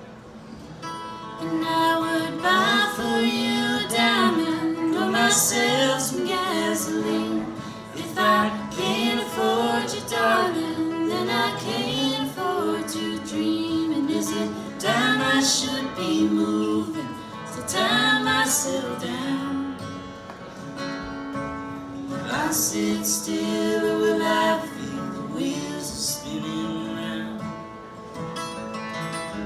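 Live acoustic music: a woman singing a slow melody over a strummed and picked steel-string acoustic guitar.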